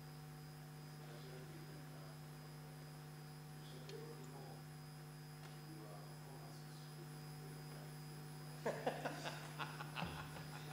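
Low, steady electrical hum in the chamber's audio feed, with a brief cluster of clicks and knocks about nine seconds in.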